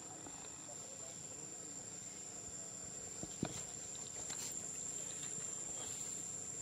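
Insects in the forest making a steady, high-pitched drone, with a soft click about three and a half seconds in.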